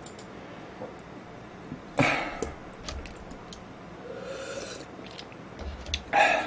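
A man drinking from a plastic cup, with short breathy noises about two seconds in and again, louder, just before the end.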